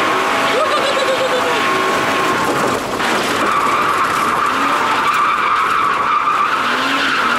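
Rear-wheel-drive BMW drift car sliding sideways, its engine held at high revs while the tyres skid and scrub on sandy concrete, heard from inside the stripped cabin. The driver is braking with his left foot against the held throttle to control the slide. The engine note dips briefly about three seconds in.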